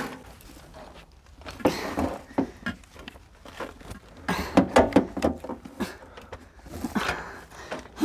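Irregular knocks and clicks of things being handled, mixed with a few brief wordless voice sounds.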